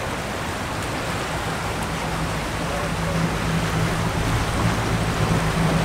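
Boat engine running with a steady low hum that grows louder as the boat approaches, over wind and water noise.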